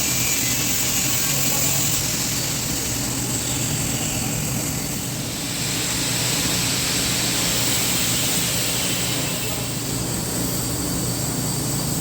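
TIG welding arc running steadily along a seam: a continuous high hiss over a low buzz, dipping slightly about five seconds in.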